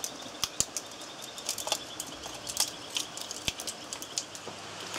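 Hands crinkling and tearing open the foil wrapper of an Esbit solid fuel cube: irregular small crackles and clicks.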